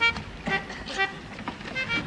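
Melodeon (button accordion) playing a lively tune, short reedy notes changing pitch, with a strong accent about twice a second.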